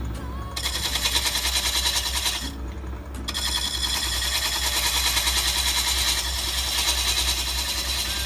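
Woodworking lathe running with a steady hum while a bowl gouge cuts into a spinning wooden bowl blank, giving a hissing, scraping noise that pauses twice as the tool is lifted off.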